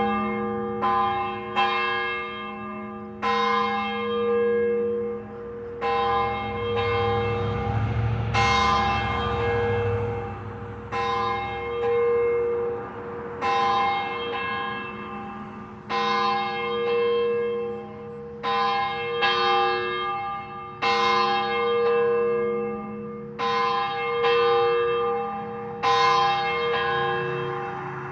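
A single church bell rung repeatedly, a stroke every one to three seconds at an uneven pace. Each stroke rings on with a long hum that carries over into the next.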